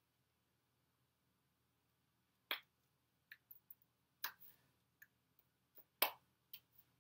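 Hands slapping and brushing against each other in a handful of short, sharp claps and taps. They start about two and a half seconds in, and the loudest comes about six seconds in.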